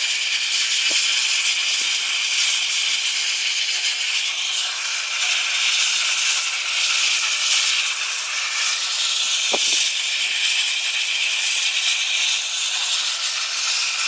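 Steam locomotive letting off steam: a loud, steady hiss, with two faint knocks, one about a second in and one near the ten-second mark.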